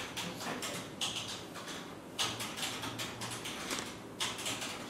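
Computer keyboard typing in three short bursts of quick clicks, over a faint steady low hum.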